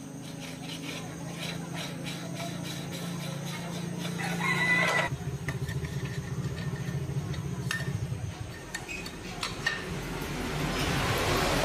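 A rooster crows once, about four seconds in, over a steady low hum and light workshop clicks and taps. A rushing noise builds near the end and cuts off abruptly.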